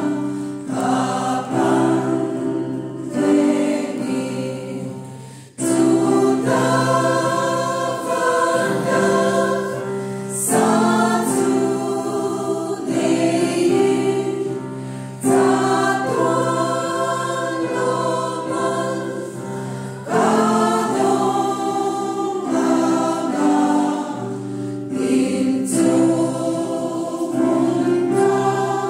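Women's choir singing a hymn together, the phrases broken by a few short pauses for breath.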